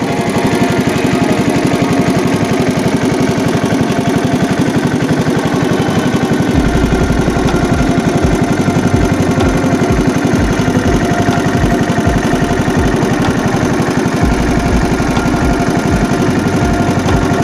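A small engine running steadily, with a fast, even firing beat and an occasional deeper rumble in the second half.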